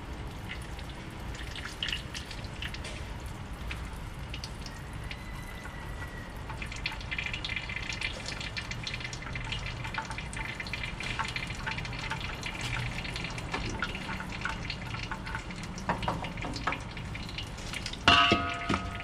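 Used engine oil trickling and dripping from the open drain hole and the oil filter mount into a drain pan, a steady patter of drops that grows busier partway through. About a second before the end comes a sudden, louder clank.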